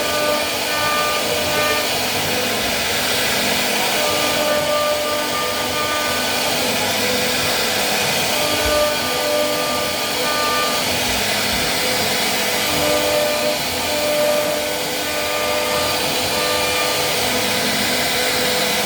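CNC wood router spindle cutting a wooden door panel: a steady whirring cutting noise with faint tones that come and go as the bit moves through the wood.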